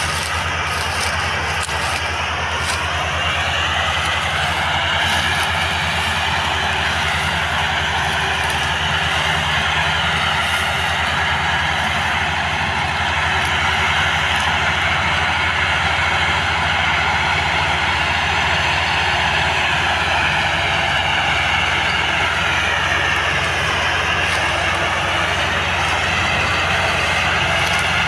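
Tractor diesel engines running hard under load, as two tractors haul a heavily loaded sugarcane trolley. It is a steady drone whose pitch rises slightly a few seconds in and dips briefly near the end.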